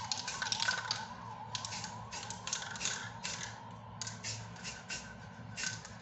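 Aerosol spray-paint can hissing in a rapid series of short bursts, most under half a second, as paint is sprayed on in quick strokes.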